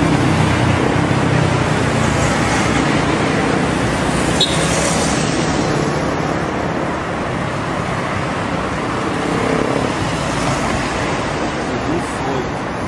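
Steady road traffic noise at a city street crossing, an even rush of passing vehicles.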